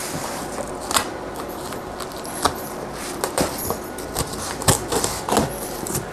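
A blade slitting packing tape along the seams of a cardboard box: a string of short, sharp rasps and clicks about a second apart, with the cardboard flaps pulled open near the end.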